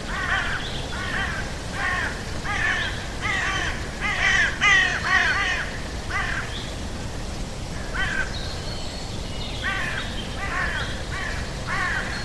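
Crows cawing: a steady run of short, harsh calls, about two a second, easing off for a couple of seconds in the middle before starting up again.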